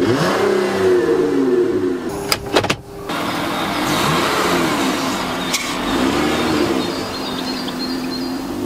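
Chrysler Voyager's 3.6 V6 engine being revved again and again, its note rising and falling with each blip, held to about 4000 rpm by the standstill rev limiter. About two and a half seconds in a few sharp clicks break in, then the engine goes on rising and falling as the van drives off.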